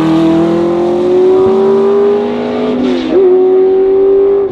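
Porsche 908/3's flat-eight racing engine and a Porsche 911 GT3's flat-six pulling away under acceleration, the engine note climbing steadily. About three seconds in the pitch dips and jumps back as a gear changes.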